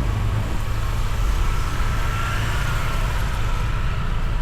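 Honda ADV 160 scooter on the move: a steady low engine rumble mixed with road and wind noise.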